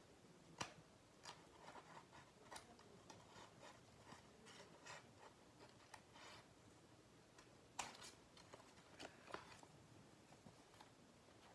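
Faint rustling and crinkling of paper and tape being handled, with scattered sharp clicks, the loudest about half a second in and again near 8 seconds.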